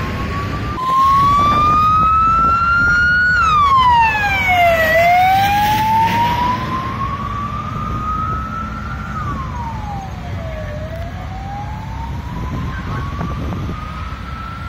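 Emergency vehicle siren wailing. Its pitch slowly rises and falls about three times and is loudest in the first few seconds. A steady rumble of traffic and engines runs under it.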